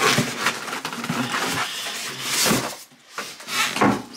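Cardboard box and packing rustling and scraping as an electric scooter is lifted out of it, with louder scrapes about two and a half seconds in and again near the end, and a brief lull between them.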